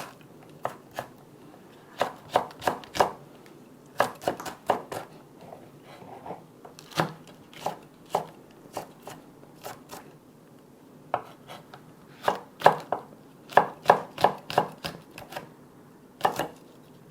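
Kitchen knife slicing vegetables on a cutting board: sharp chops in irregular short runs of quick strokes with pauses between, busiest in the last few seconds.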